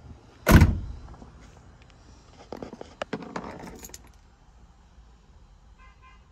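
A loud thump about half a second in, then a second or so of light clicking and rattling, and a brief faint beeping near the end.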